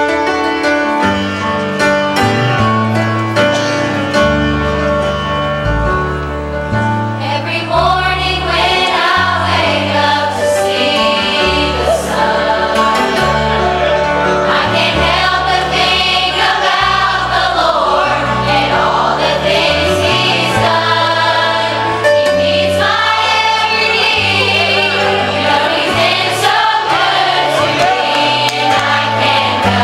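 Large mixed youth choir singing a gospel song over piano and bass accompaniment. The music starts suddenly with an instrumental opening, and the choir's voices come in about eight seconds in.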